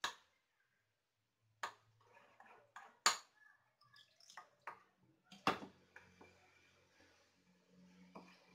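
A spoon knocking and scraping against a ceramic mixing bowl as water is poured into flour and stirred. There are four sharp clinks, the loudest about three seconds in, with smaller clatters between.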